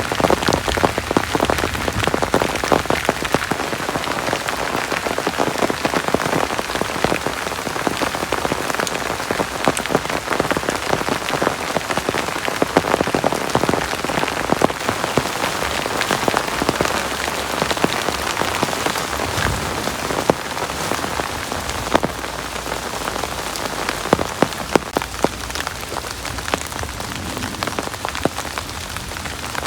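Heavy rain falling steadily, with a dense patter of sharp drop impacts on a nearby surface.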